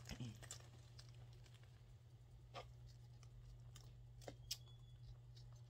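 Near silence with a steady low hum and a few faint clicks from the handbag's metal clasps and charm being handled.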